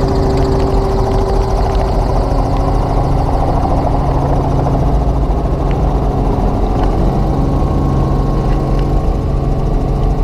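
Light helicopter's engine and rotors running steadily, heard from inside the cabin as a constant drone with a low hum.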